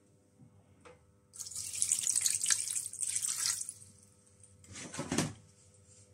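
Water poured in a stream into a saucepan of raw seasoned chicken drumsticks for about two seconds, adding the water to parboil them. A brief knock follows near the end.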